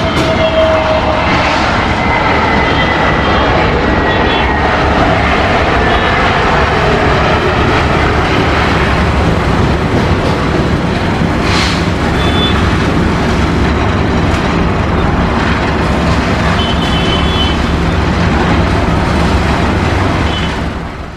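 Airbus A320neo jet airliner touching down and rolling out, its engines making a loud, steady rush of noise, with an engine whine falling in pitch over the first few seconds. The noise fades out quickly near the end.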